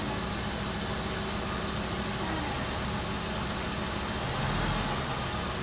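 RV engine running steadily at low speed, rising slightly in level about four and a half seconds in.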